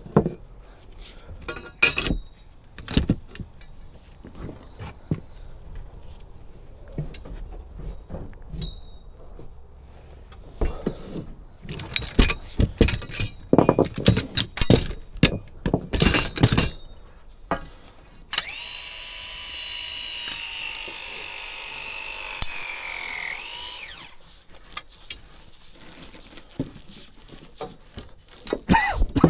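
Plumbing work: a long run of separate knocks and clatters from tools and pipework being handled, then a power tool running with a steady whine for about five seconds before it stops, followed by a few more light knocks.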